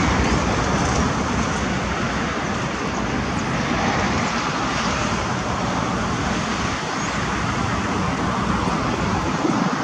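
Steady, even noise of road traffic, with no separate events standing out.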